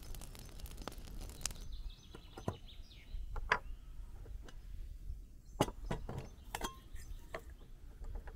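A steady trickling hiss of oil poured into a metal wok, cut off about a second and a half in, followed by a handful of separate light clinks and knocks from a brass teapot, its lid and small glass containers being handled on a wooden table.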